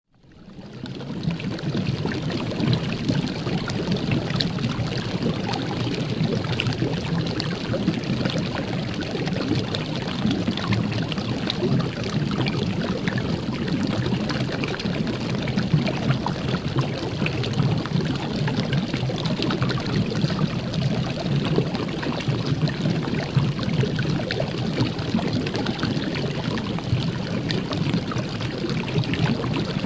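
Running water, a steady rushing sound with a fine crackle, fading in over the first second.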